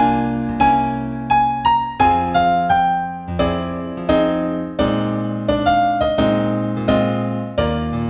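New age piano music: a gentle melody of single struck notes, each fading away, over soft held chords that change every two to three seconds.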